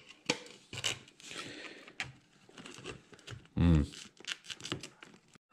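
Plastic tubing and a plastic container being handled and pushed together: irregular scraping, rustling and clicking of plastic, with a brief grunt-like voice sound about two-thirds through.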